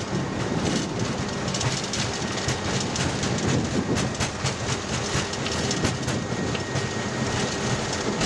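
Airbus A330 take-off roll heard from the cockpit: engines at take-off thrust under a dense steady rumble from the airframe and wheels, with rapid irregular knocks as the landing gear runs over the runway surface while the aircraft accelerates past 100 knots toward V1.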